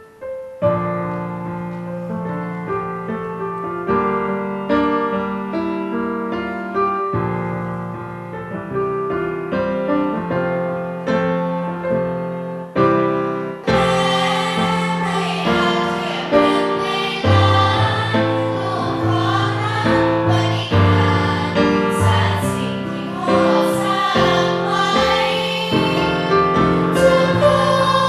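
Roland RD-700 stage piano playing a slow introduction alone. About halfway through, a girls' student choir comes in, singing in parts over the piano.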